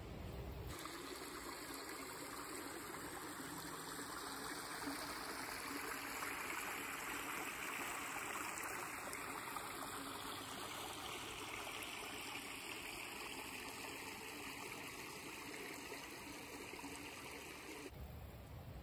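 Steady running water, like a stream, starting just under a second in and stopping shortly before the end.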